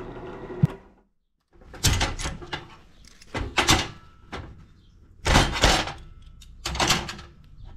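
Hands working a locking C-clamp off two stacked steel plates, with a paper towel rustling against the metal: four short scraping, clattering handling noises.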